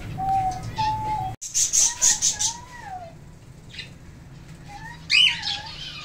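Caged pet parrots whistling and calling: a short two-note whistle, then after a sudden break a series of whistled calls that rise and fall in pitch, the loudest about five seconds in.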